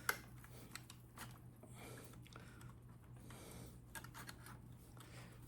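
Scattered small clicks and light scrapes of hand tools and parts during a Daisy air rifle teardown, the sharpest click just after the start, over a steady low hum.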